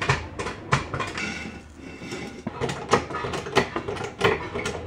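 Steel floor jack being moved and worked under a car: a run of irregular metallic clicks and clanks, sparser for a moment in the middle.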